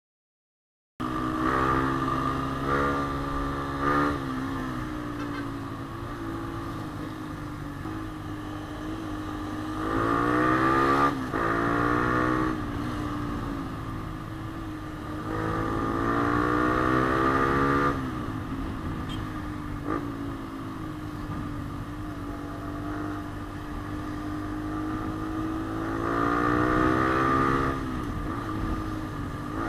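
Yamaha Sniper 150's single-cylinder four-stroke engine running under way, starting abruptly about a second in. It revs up with rising pitch and then drops back four times, running steadier in between.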